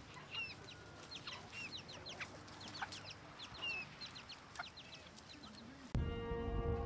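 Chickens foraging, with many short, high peeps and occasional clucks. About six seconds in, background music with held notes starts abruptly.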